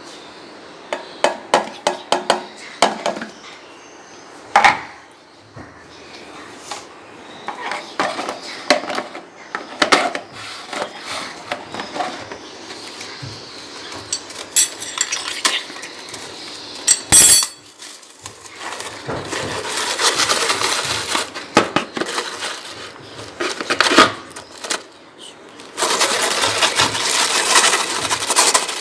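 Utensils clinking, tapping and scraping against a dish in quick irregular strokes, with longer crackling, crunching stretches around the middle and near the end.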